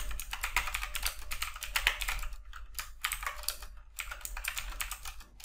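Computer keyboard typing: quick runs of key clicks, broken by a few brief pauses.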